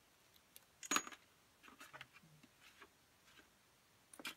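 Small metal clinks from hand work on a Kawasaki triple's bare engine case: a screwdriver and loosened clutch-actuator screws. A sharp clink about a second in, a few lighter clicks and rattles after it, and another clink near the end.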